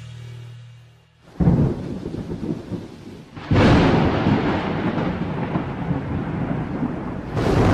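A music sting fades out, then a thunderstorm: a sudden crack of thunder about a second and a half in, a second loud roll of thunder a couple of seconds later, and steady heavy rain beneath.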